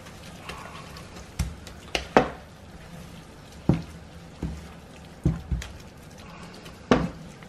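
A silicone spoon stirring a spinach and feta mixture in a non-stick frying pan, knocking against the pan about eight times at irregular intervals, over a low steady hum.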